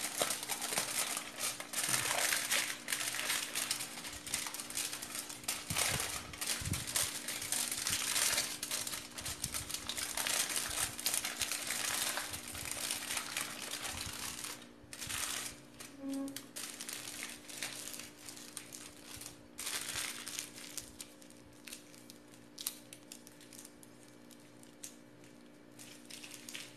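Aluminium foil crinkling and crackling as it is folded and rolled tightly around a meat log, then twisted shut at the ends. The crinkling is heaviest in the first half and thins to lighter rustles toward the end.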